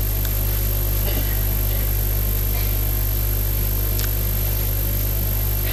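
Steady electrical mains hum with a hiss from the sound system, and a couple of faint clicks.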